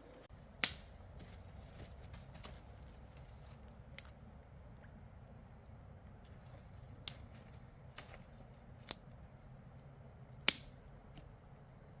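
Six sharp clicks spaced irregularly over a quiet background, the loudest two near the start and near the end.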